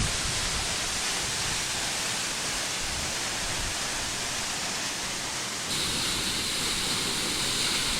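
Waterfall rushing in a steady roar of white water. About three-quarters of the way through, the sound changes abruptly, turning a little louder and hissier.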